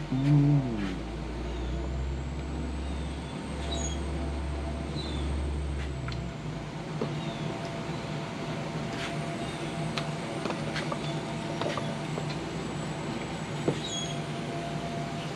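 Steady mechanical hum with a low rumble that stops about six seconds in, with scattered faint clicks and a brief loud pitched sound at the very start.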